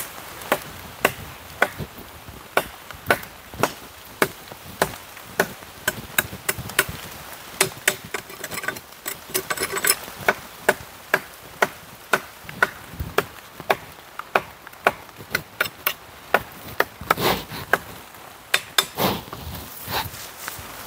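Dry wood being chopped by hand with a blade: sharp, even strikes at about two a second.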